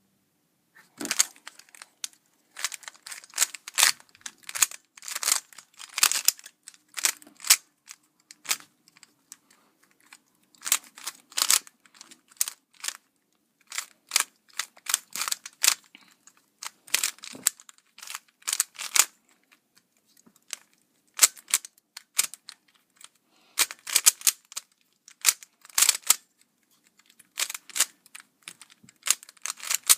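Stickerless 3x3 speed cube being turned rapidly during a timed solve: bursts of fast plastic clicking and clacking, broken by short pauses.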